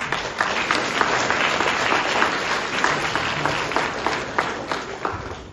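Audience applauding, with single hand claps standing out close by, dying away about five seconds in.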